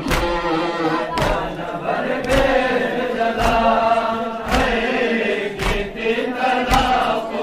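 A crowd of men chanting a Shia mourning lament (noha) in unison, with a sharp collective slap about once a second from rhythmic chest-beating (matam).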